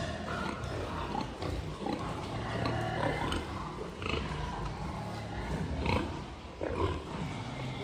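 Pigs grunting, a busy irregular run of short calls.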